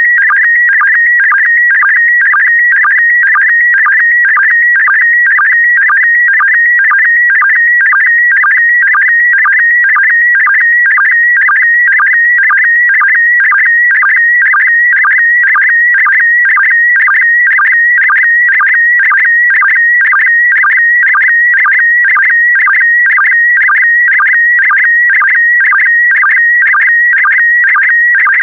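Slow-scan television (SSTV) signal in PD120 mode, sending an image: a continuous warbling electronic tone that shifts in pitch with the picture's brightness. It is broken by a short, lower sync pulse about twice a second, one for each pair of scan lines.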